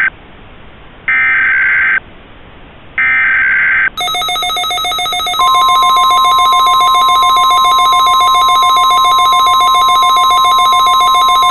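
EAS SAME header data bursts: two one-second buzzing bursts about a second apart, closing a three-burst header. About four seconds in, a Midland WR400 weather radio's rapidly pulsing advisory alert tone starts. A second and a half later a loud, steady single tone near 1 kHz joins it: the NOAA Weather Radio 1050 Hz alarm tone.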